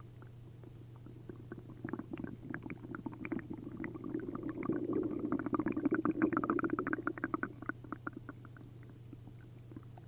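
Human stomach and intestines gurgling: a long run of rapid bubbling pops that builds from about two seconds in, peaks midway and fades out near the end. It is liquid and gas moving through an upset gut after a liter each of milk and prune juice.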